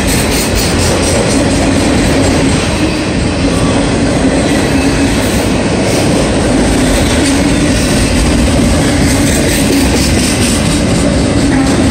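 Freight train of autorack cars passing at close range: a steady, loud noise of steel wheels rolling over the rails, with a steady low tone running through it.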